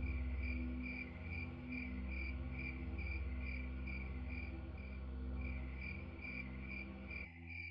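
Crickets chirping in a steady, evenly spaced pulse, over a low steady drone that cuts out near the end while the chirping carries on.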